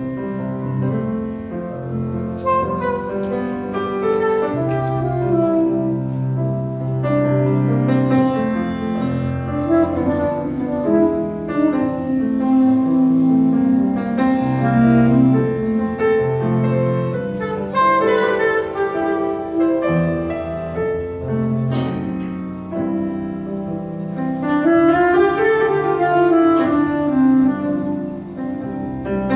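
Live jazz: a saxophone playing melodic lines over piano accompaniment, with a rising and falling run a few seconds before the end.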